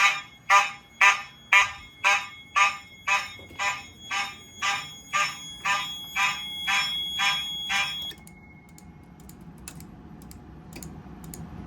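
Fire alarm horns sounding in march time, pulsed by a relay timer module at about two short blasts a second. The blasts grow weaker and run together, then cut off suddenly about eight seconds in.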